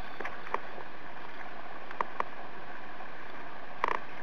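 Choppy sea water lapping and splashing at the waterline, a steady rush with a few short, sharp splash ticks, the busiest just before the end.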